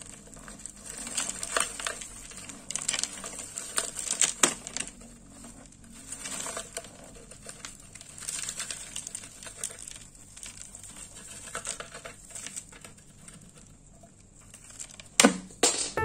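Crushed ice crunching and crackling as fingers squeeze and pack it, in irregular bursts, with two sharper, louder cracks near the end.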